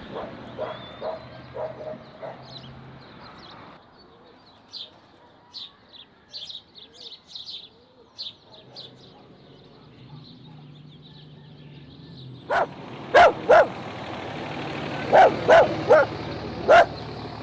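A dog barking: a few short barks at the start, then a loud run of about seven barks near the end. Faint high chirps come in between.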